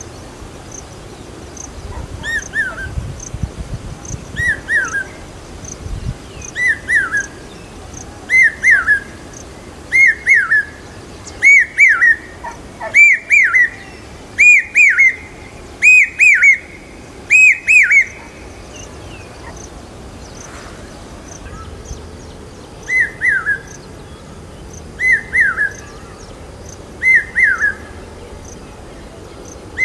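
Common hawk-cuckoo (brain-fever bird) calling: a loud whistled three-note phrase repeated every second or two, each repeat higher and louder until it breaks off about eighteen seconds in. After a pause of a few seconds it starts again, lower and softer.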